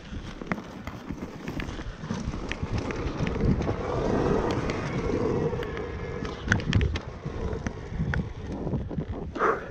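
GasGas enduro dirt bike running at low speed down a rough dirt trail, its engine mixed with rattles and knocks from the chassis and tyres over bumps, and wind buffeting the microphone. The noise swells around the middle, and there are several sharp knocks a little after halfway.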